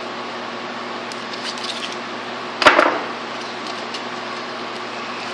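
A single sharp knock about two and a half seconds in, as of something set down on a hard work surface, with a few faint clicks and rustles before it over a steady background hum.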